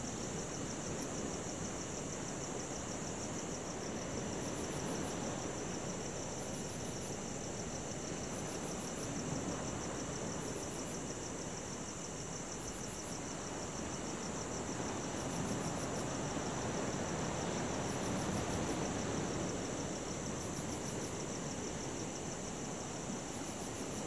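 Crickets trilling steadily over the rushing wash of ocean waves that slowly swells and eases. A higher, pulsed chirp comes in short bursts about every two seconds.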